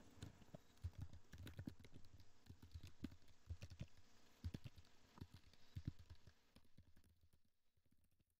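Faint computer keyboard typing: a quick, irregular run of key clicks that stops about six and a half seconds in.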